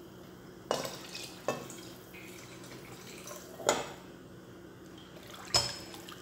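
Water poured from a glass into a pressure cooker of curry, landing in four short, sudden splashes with knocks, a second or two apart.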